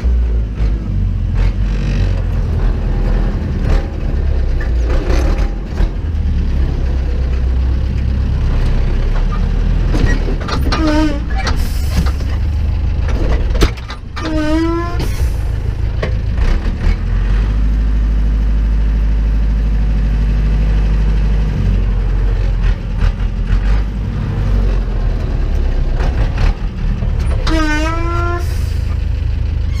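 Zetor 7745 tractor's four-cylinder diesel engine running steadily, heard from inside the cab. Three short squeals cut through it, each dipping and then rising in pitch, about 11, 14 and 28 seconds in.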